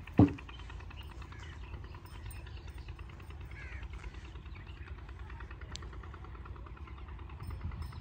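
A motor runs steadily with an even, fast pulsing throb, and crows caw faintly. A single loud thump sounds just after the start.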